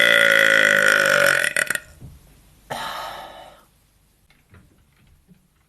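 A woman's long, drawn-out belch, held at a steady pitch and ending about a second and a half in. About a second later comes a short, breathy burst of noise.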